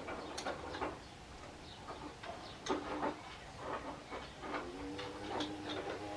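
Scattered light clicks and taps of hand tools and metal fork parts being handled, irregularly spaced, with a steady low hum coming in near the end.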